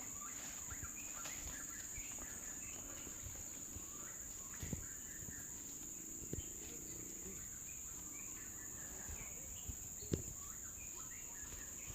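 Steady high-pitched drone of insects, with scattered short bird chirps over it and a few soft knocks.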